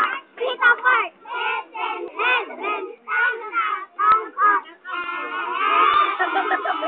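Young girls singing together in a group. A single sharp clap sounds about four seconds in, and about five seconds in many children's voices overlap in shouting.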